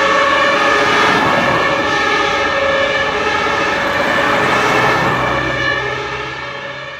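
German two-tone sirens (Martinshorn) of several fire engines on an emergency run, overlapping with one another over traffic noise, fading out near the end.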